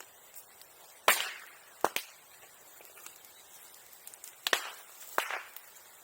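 Bonfire popping: sharp firecracker-like cracks from burning wood, the loudest about a second in, a quick pair just after, and two more near the end.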